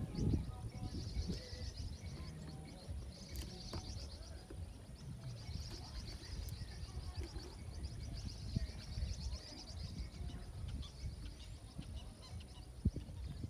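Several birds singing, with a high, rapid trill that repeats every couple of seconds and scattered fainter chirps, over a steady low rumble.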